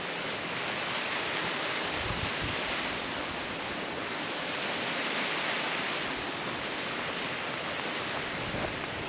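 Steady rush of falling water from a waterfall, with a brief low buffet of wind on the microphone about two seconds in.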